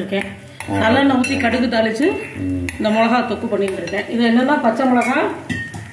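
A woman talking, with light clinks of steel utensils against a pan.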